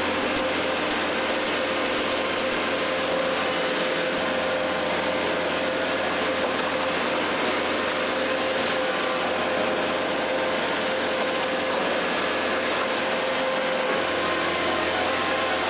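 A wood-processing machine, such as a wood chipper, running steadily as it works through wood: an even mechanical clatter and grind with a constant hum.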